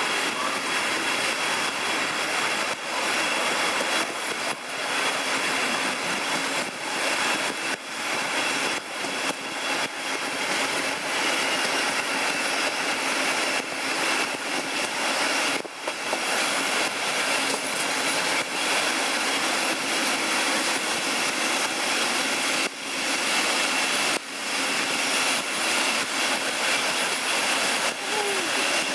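DB class 218 diesel-hydraulic locomotive working hard as it hauls the train up a steep incline, heard from a coach window over steady wheel and rail noise, with a faint steady whine running through it.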